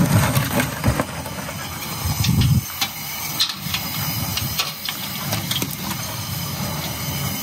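Gas burner running steadily under a pot of water being brought to a boil for cooking mud crabs, with scattered clicks and knocks. A louder low rush comes about two seconds in.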